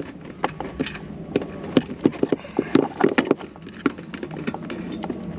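Irregular clicks and knocks of car parts being handled and worked loose by hand, several quick taps bunched between about two and three and a half seconds in.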